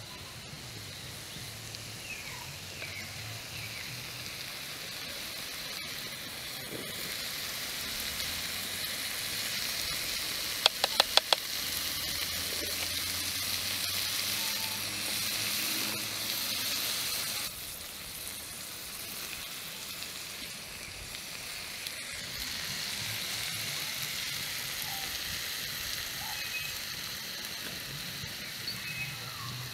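Chicken wings, onions and peppers sizzling as they fry in a wide metal pan, the sizzle swelling in the middle and dropping off partway. A quick run of four sharp clicks about ten seconds in.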